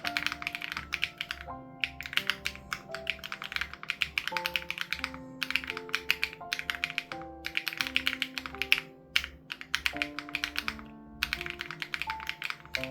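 Typing on an SPM AL87B mechanical keyboard with BSUN Raw switches and its sound-dampening foam removed: quick runs of key clacks that break off briefly several times. Soft background music with held notes plays underneath.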